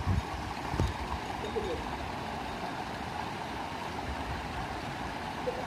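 Steady rush of running water from the stream and small cascades feeding a fishing pond, with a short knock about a second in.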